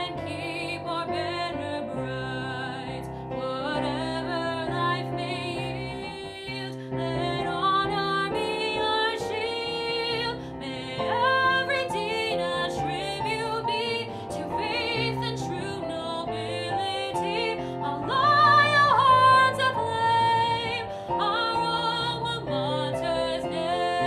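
A woman singing solo with vibrato, accompanied by piano. She swells to the loudest point on a high held note about three quarters of the way through.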